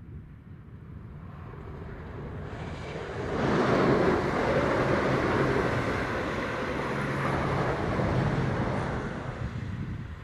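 Arriva CrossCountry Class 170 Turbostar diesel multiple unit passing at speed: the hum of its underfloor diesel engines and the running noise of the train build up, rise sharply about three seconds in as it draws level, hold, then fade as it runs away.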